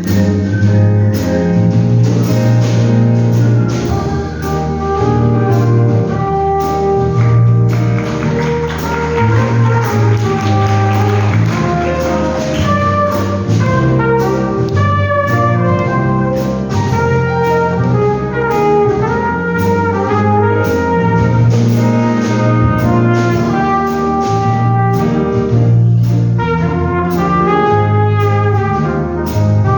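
Music: a high melody line, whistled, over a brass-heavy instrumental backing with a repeating bass pattern. The melody wavers in pitch near the end.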